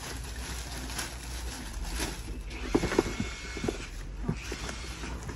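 Crinkling plastic bag and rustling cardboard as a bag-wrapped power tool is handled and set into its box. A few light knocks and clicks come about three seconds in.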